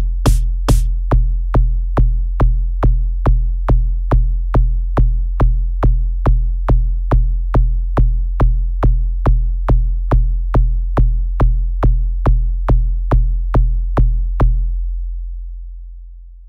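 Electronic dance remix outro: a drum-machine kick beat about two and a half strikes a second over a steady deep bass. The beat stops about fourteen seconds in and the bass fades out.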